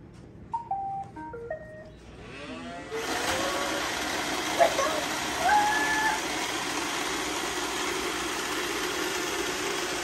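iRobot Roomba 690 robot vacuum playing its short start-up melody of beeps as its Clean button is pressed. Its vacuum motor and brushes then spin up over about a second and run steadily as it drives over the hardwood floor towing a load. A couple of brief higher sounds come about five seconds in.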